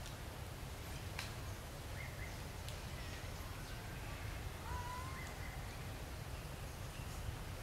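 Outdoor ambience: a steady low rumble, with a few faint, short, high calls from animals, most of them between about two and five seconds in.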